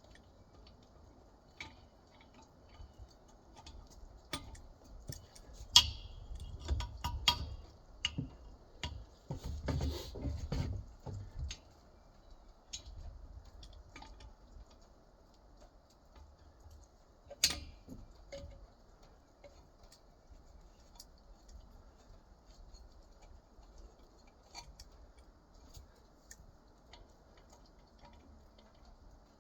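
Scattered metallic clicks, clinks and knocks of hand tools and loose parts while an air compressor is being taken apart, busiest in the first half, with one sharp knock a little past halfway.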